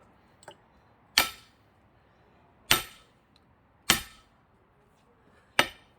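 Four heavy, ringing strikes about a second or more apart, as a thick pine log is hit while being split for firewood with an axe that keeps sticking and bouncing out.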